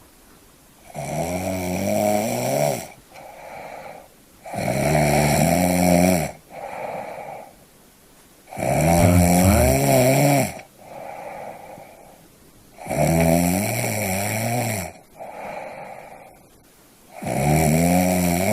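A sleeping person snoring in a steady rhythm: five loud, rattling snores about four seconds apart, each followed by a softer, shorter breath.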